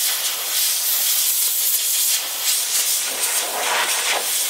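Compressed-air blow gun hissing in one long, steady blast as air is blown over the locomotive's bare brass boiler, with slight swells as the nozzle moves.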